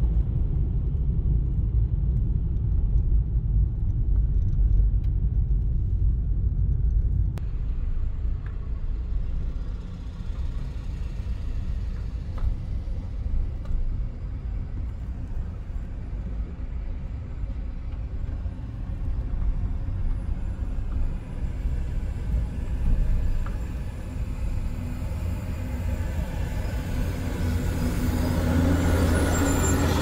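Steady low rumble of a car's engine and tyres heard from inside the cabin while driving. Near the end it grows louder as the car draws alongside a heavy truck.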